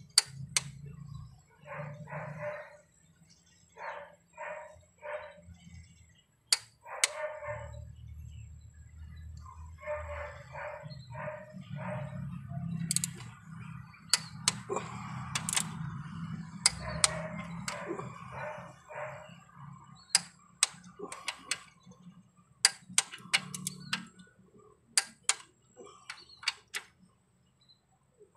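Socket wrench turning the bolts on a Toyota Corolla's cylinder head, giving sharp metallic clicks one by one, more often near the end. Groups of short repeated calls sound between the clicks.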